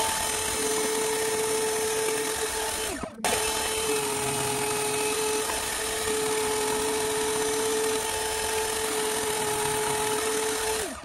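Stationary bandsaw running and cutting small wooden knife-handle scale blocks: a steady motor hum and whine with the hiss of the blade in the wood. The sound drops out briefly about three seconds in, and the pitch sags as it stops near the end.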